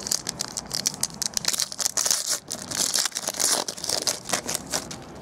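Foil wrapper of a Panini Prizm baseball card pack being torn open and crumpled by hand: a dense run of crinkling and crackling, busiest through the middle and easing off near the end.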